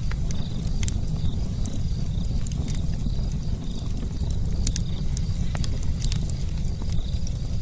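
Fire burning with a steady low rumble, dotted with frequent sharp crackles and pops.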